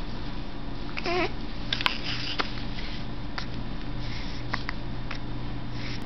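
A one-month-old baby gives one short coo with a wavering pitch about a second in, followed by a few faint short clicks, over a steady low hum.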